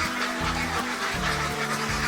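Background music with held bass notes, mixed with a flock of ducks quacking and calling.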